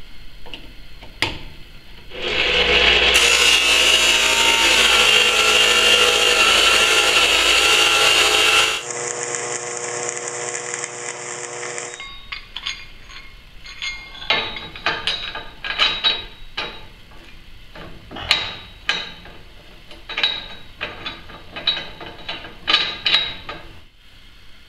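Metal-shop work on a steel-tube frame: a power tool runs loudly for about seven seconds, then a long series of sharp knocks and taps follows.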